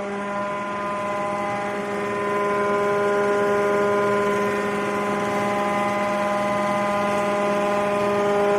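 Pineapple-leaf fibre decorticator machine running at steady speed: a steady mechanical hum with several held pitches.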